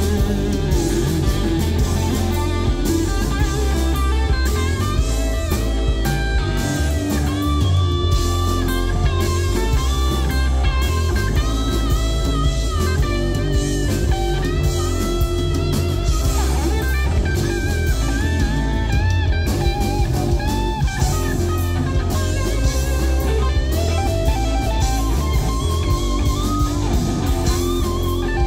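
Live rock trio: a Telecaster-style electric guitar leads with bent, wavering notes over bass and drums.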